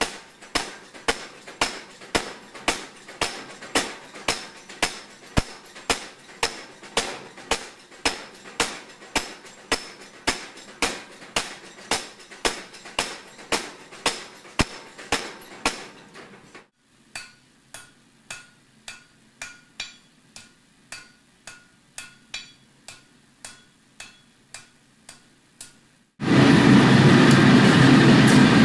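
Blacksmith's hammer striking steel on an anvil while forging tong jaws, at a steady rhythm of about two blows a second, then fainter, slower blows. Near the end a loud steady rushing noise takes over.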